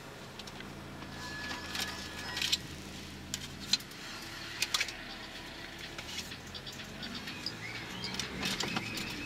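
Car cabin sound while driving slowly: a low engine hum, with light clicks and rattles scattered through it.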